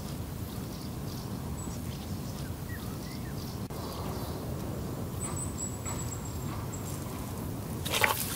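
Outdoor riverside ambience: a steady rushing background with faint small-bird chirps and a thin high whistle. Near the end comes a brief, louder swish of noise as the float is pulled under.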